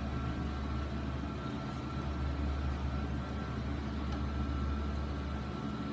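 Steady machine hum with a thin high whine: a 3D printer's cooling fans running while its nozzle is hot.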